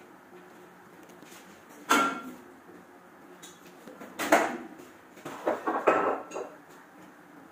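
Cookware and utensils handled at a kitchen stove: a sharp metallic clank about two seconds in, another clank a little after four seconds, then a run of rattling knocks and clatter near the end, over a low steady hum.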